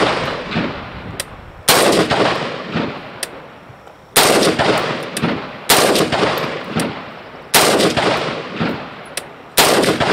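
Rifle firing five slow, aimed single shots about two seconds apart, each with a long echoing tail. Fainter sharp cracks fall between the shots.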